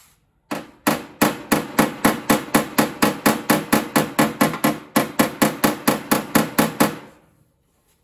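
Hammer rapidly tapping the steel rear fender lip of a Mazda RX-7 FC, about three strikes a second with a metallic ring after each, starting about half a second in and stopping about a second before the end: panel-beating the rolled-in fender lip back out to its original shape.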